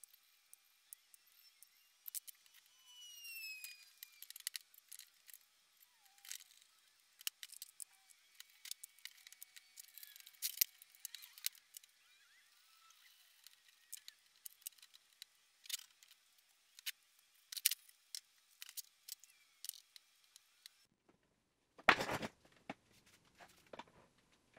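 Faint, thin clicks and clinks of steel parts and hand tools being handled and set down on a steel welding table, with a couple of short squeaks about three seconds in. Near the end there is a single louder clunk of metal.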